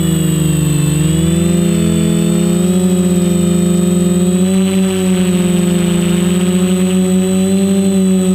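Quadcopter electric motors and propellers whining in flight, the pitch dipping as the throttle comes off near the start, then rising a little and holding steady.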